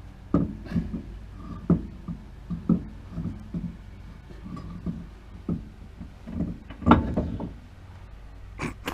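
Irregular knocks and clunks of a wheel being handled and fitted onto a Mazda Miata's rear hub, with a louder cluster of knocks about seven seconds in.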